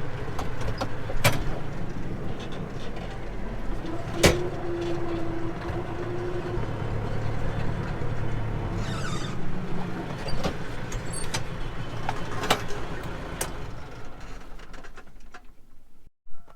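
An engine running steadily, with sharp metal clanks every few seconds and a held steady tone about four seconds in; the sound fades away near the end.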